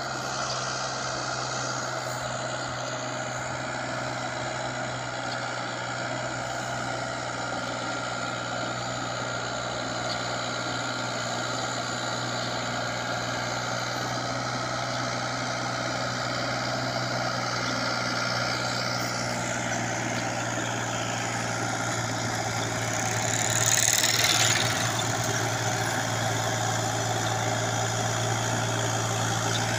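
Ford 4600 tractor engine running steadily while pulling a heavy trailer load, a constant low hum with a steady drone above it. A brief louder rush of noise swells about 24 seconds in.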